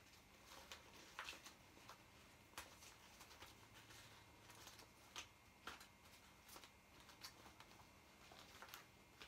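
Faint, irregular crinkling and crackling of a vinyl inflatable dog toy being handled, squeezed and folded.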